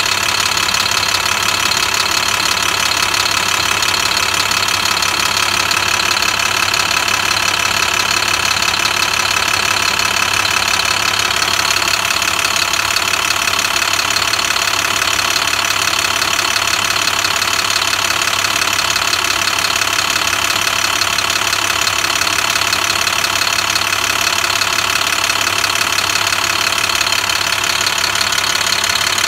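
Navistar MaxxForce DT inline-six diesel engine running steadily at low idle, loud and heard close up through the open engine cover.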